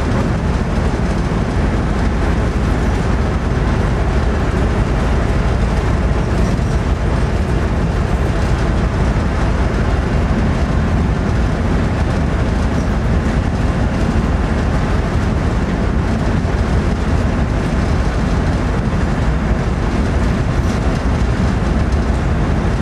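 Steady deep rumble inside the cab of a moving Class 47 diesel locomotive: its Sulzer V12 engine running, together with the wheels on the rails.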